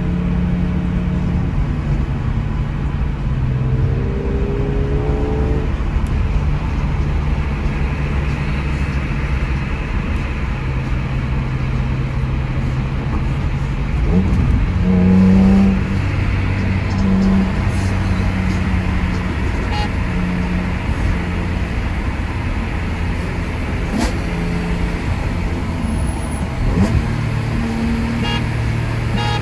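Car engine running at low revs while driving, a steady low note whose pitch steps up and down a few times. It rises briefly and is loudest about halfway through, and rises again near the end.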